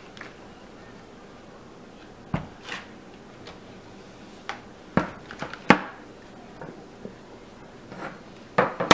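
Scattered plastic clicks and knocks as soap-batter mixing bowls and a clear plastic mold are moved and set down on a tabletop, about seven in all, the loudest just before six seconds in and at the very end.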